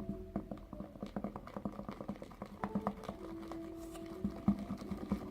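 A stick stirring a sticky mixture of glue, shaving cream and liquid detergent in a bowl: quick, irregular wet clicks and squelches. The detergent has just gone in as activator, and the mixture is starting to thicken into slime.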